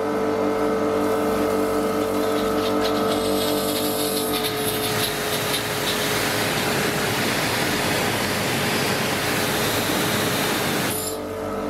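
Electric pressure washer running, its motor and pump giving a steady whine while the high-pressure water jet hisses against wooden decking. The spray hiss grows louder about halfway through, then eases slightly near the end.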